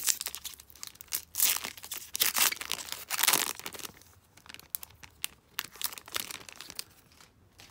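Foil wrapper of a hockey card pack being torn open and crinkled in a run of loud rustling bursts over the first four seconds, then fainter crinkles.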